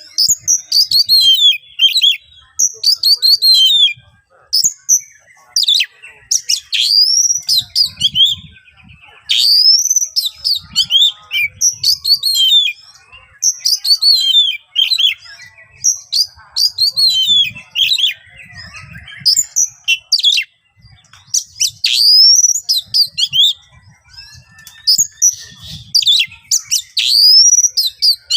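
Oriental magpie-robin (kacer) singing loud, harsh song: phrase after phrase of sweeping whistles and rasping notes, each a second or two long with short gaps between.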